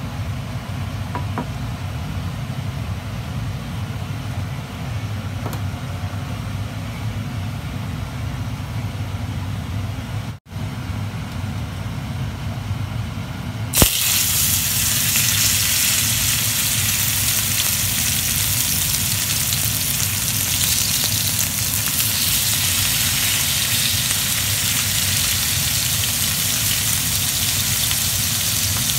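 Steady low hum while oil heats in a frying pan. About halfway through, a steak is laid into the hot oil and loud sizzling starts at once, then carries on steadily as two steaks fry.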